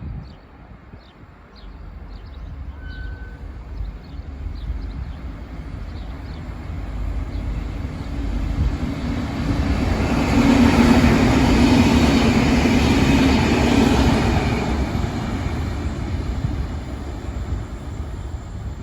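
A train passing, growing louder to a peak about halfway through, with a deep drone under the rumble, then fading away.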